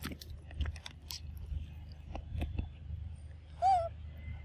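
A young macaque gives one short, high squeal about three and a half seconds in. Scattered small clicks and taps and a low steady rumble run beneath it.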